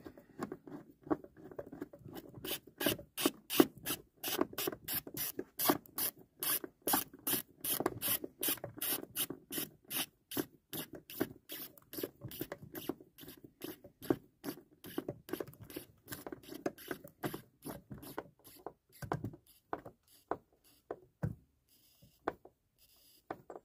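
Ratchet wrench clicking in an even run, about three clicks a second, as a mounting bolt is tightened; the clicks thin out and stop near the end.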